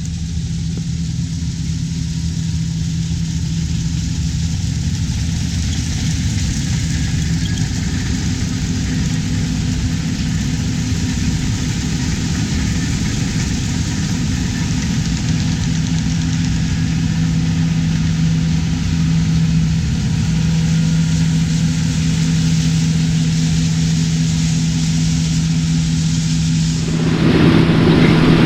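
Large diesel farm machine running steadily with a constant low engine hum; the sound changes abruptly near the end.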